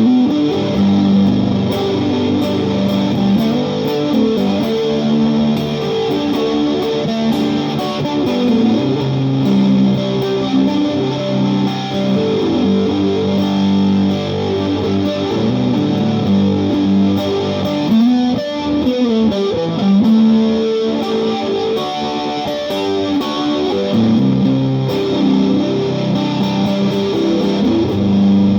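Fender Telecaster electric guitar played through a Vox AC15 amp with Little Big Muff distortion, flanger and power booster pedals on: sustained, distorted chords and notes, with the pitch wobbling briefly about two-thirds of the way through.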